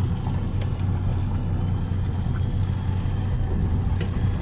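Boat engine running slowly at idle, a steady low hum, with a couple of light clicks.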